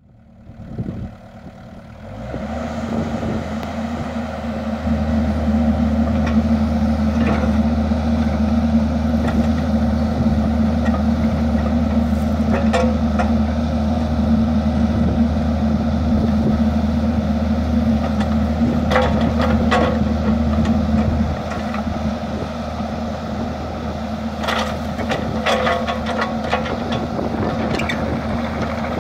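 A 2012 Kubota KX121-3 mini excavator's diesel engine runs under hydraulic load while the bucket digs, with scattered clanks and scrapes of steel in rocky dirt. The engine comes up within the first couple of seconds, runs harder from about five seconds in, and eases back about twenty seconds in.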